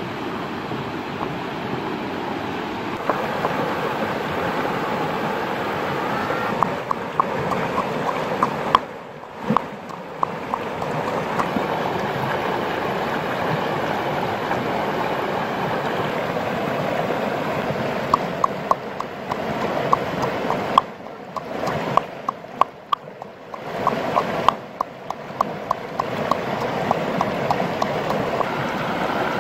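Steady rush of a stream's running water, with runs of quick light knocks, about four a second, from a pestle pounding chillies and garlic in a coconut-shell bowl.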